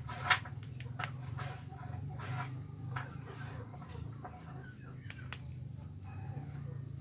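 Field cricket chirping: short, high chirps, often in pairs, starting about a second in and going on until near the end. A few light taps and rustles from handling the bamboo cages and leaves, the loudest one just after the start.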